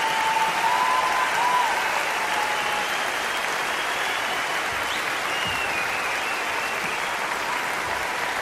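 Audience applauding steadily, with a few thin whistles rising over the clapping near the start and again about five seconds in.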